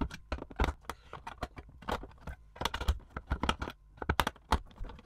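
Number one Phillips screwdriver working the screws out of a plastic switch enclosure's cover: a string of irregular small clicks and taps of the tip and the plastic case.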